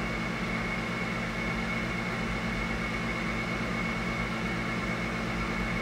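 Steady background machine hum with a thin, high-pitched whine running along with it.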